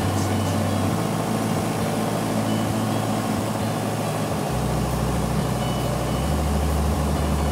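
Cessna 172 Skyhawk's piston engine and propeller droning inside the cabin on short final approach. The low hum shifts in pitch about a second in and again a little past halfway.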